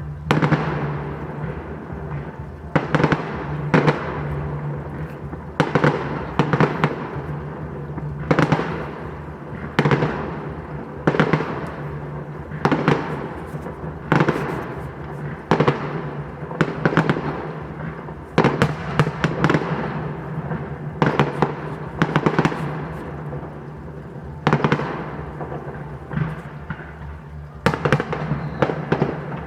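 Fireworks display: a continuous run of sharp bangs from bursting shells, about one or two a second and often in quick clusters, each trailing off in an echo.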